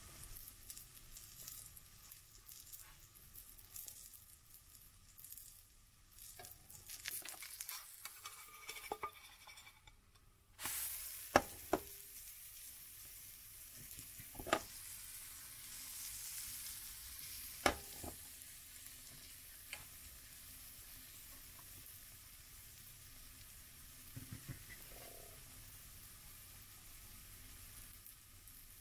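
A pancake frying in fat in a pan: light crackling spits, then about ten seconds in a sudden, louder steady sizzle as the pancake is flipped onto its raw side. A few sharp knocks of the spatula on the pan follow over the next several seconds.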